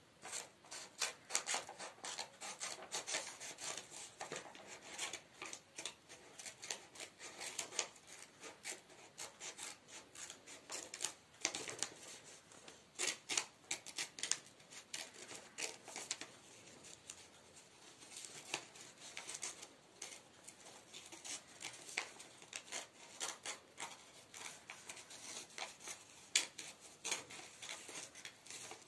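Scissors cutting paper in many short snips, irregularly spaced.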